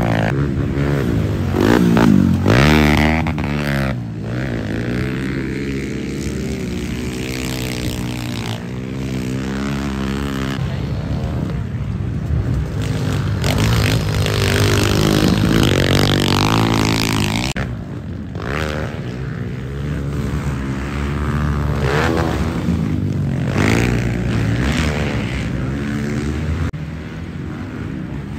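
Several small pit bike and dirt bike engines revving up and down as they race. Their pitches rise and fall with the throttle and gear changes, often overlapping.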